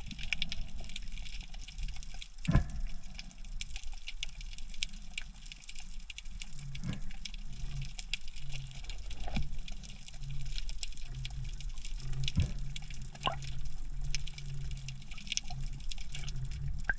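Underwater sound through an action camera's housing just below the surface: water sloshing and moving, with many scattered sharp clicks and crackles. A low hum comes and goes through the second half.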